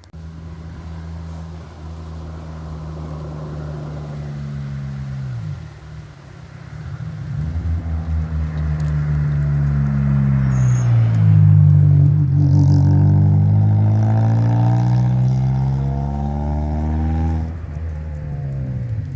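Car engines accelerating past one after another, pitch climbing and then dropping sharply at a gear change about five seconds in. A louder pass builds from about seven seconds, peaks near the middle with more than one engine note overlapping, and fades near the end.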